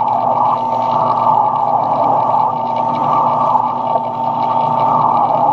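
Metal lathe running steadily: a constant machine hum with a steady high tone.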